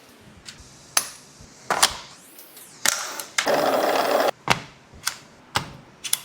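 Toy gel blaster with a smoke silencer making a string of sharp, separate clicks and snaps, with a hissing burst lasting about a second near the middle.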